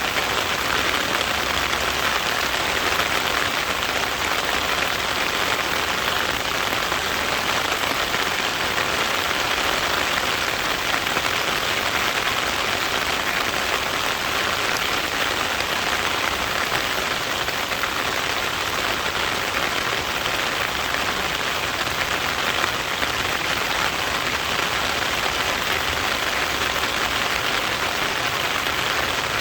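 Steady rain falling and pattering on surfaces, an even hiss of many drops with no let-up.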